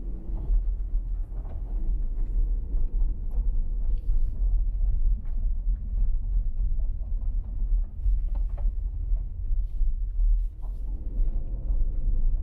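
A vehicle driving slowly on a gravel dirt road: a steady low rumble of tyres and engine, with a few sharp ticks about four seconds in and again later.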